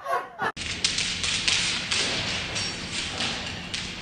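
Irregular taps and thumps over a steady noisy hiss, starting abruptly about half a second in.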